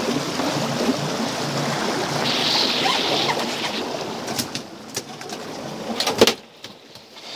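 Water rushing and a boat engine running as an albacore tuna is gaffed at the boat's side, then a few sharp knocks and one loud thump about six seconds in as the fish is hauled over the side and hits the deck.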